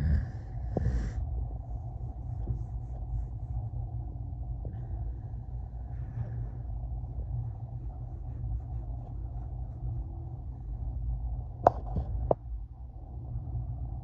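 Low, steady rumble of a passing freight train heard from inside through a window, with two sharp knocks about half a second apart near the end.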